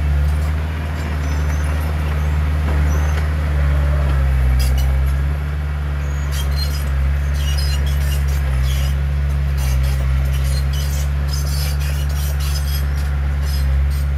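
Diesel engine of heavy earthmoving machinery running steadily under load, with a run of sharp metallic clinks and clatter through the middle and later part.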